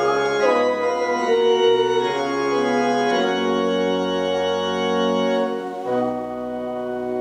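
Pipe organ playing slow, sustained chords that change every few seconds.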